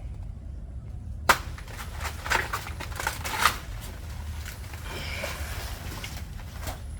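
Banana plant being cut: one sharp strike about a second in, then a quick run of crunching, tearing strikes over the next second or so, with fainter scraping later, over a low steady rumble.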